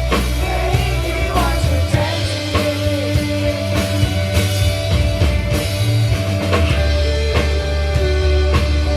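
A live rock band playing a song, with a drum kit keeping a steady beat, held guitar notes and a heavy bass line.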